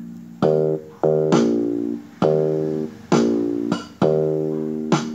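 Background music of plucked string chords, each struck sharply and left to ring out, coming about once a second.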